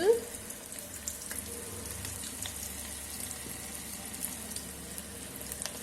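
Soya chunks in a cornflour batter frying in hot oil in an electric kettle: a steady sizzle with scattered small crackles.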